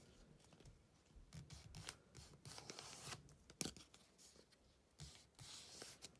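Faint rustling and crackling of a paper airplane being folded and its creases pressed, with one sharper crackle about three and a half seconds in.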